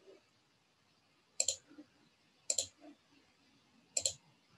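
Computer mouse clicks: three sharp clicks spaced roughly a second or so apart, each a quick double tick.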